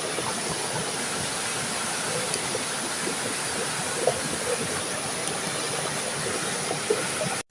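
River water rushing steadily, an even hiss, with a few faint small knocks; it cuts off suddenly near the end.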